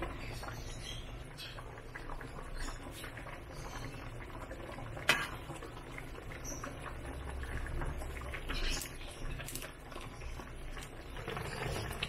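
Sinigang soup with a salmon head and mustard greens bubbling at a simmer in a metal wok, with many small pops. A single sharp click about five seconds in.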